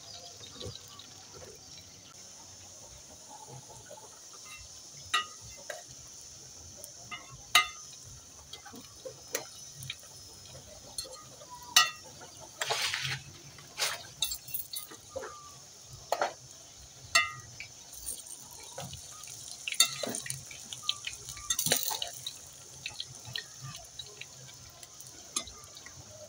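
Maize-flour and banana snacks deep-frying in hot cooking oil in a small metal saucepan over a wood fire. A steady high sizzle runs under scattered sharp pops and clinks, which come thickest in the middle.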